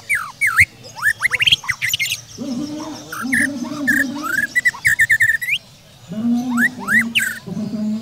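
White-rumped shama (murai batu) singing: a rapid string of loud whistled notes that sweep up and down, with quick runs of repeated notes. From about two and a half seconds in, a lower wavering tone sounds under the song, breaks off, and comes back shortly after six seconds.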